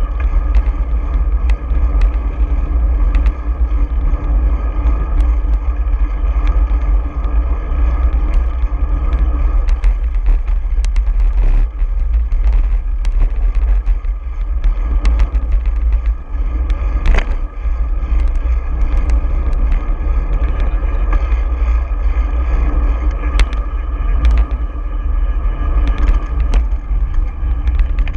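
Steady, loud low rumble of wind buffeting a bicycle-mounted camera's microphone while riding in city traffic, with frequent short clicks and rattles.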